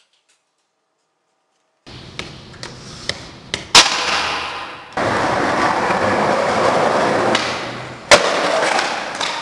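After about two seconds of dead silence, a few sharp clicks, then a loud sharp crack, a long stretch of loud noise, and a second loud crack near the end.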